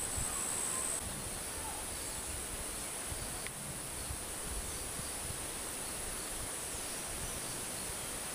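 A steady, high-pitched insect drone over an even outdoor hiss. About a second in, it drops to a quieter level.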